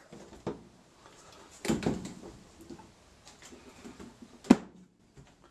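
Plastic clicks and knocks from the washer's control-panel pieces being handled and fitted into place, with one sharp, loud click about four and a half seconds in.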